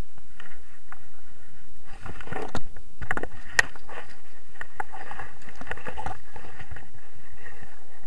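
Wind buffeting an action camera's microphone as a steady rushing noise. Rustling and sharp knocks come through from about two to six seconds in.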